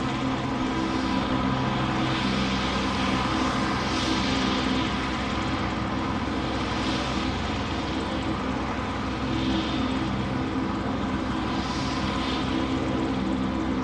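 A steady engine drone, a constant hum with several tones stacked over a noisy rush, holding an even level, with soft hissing swells coming and going every few seconds.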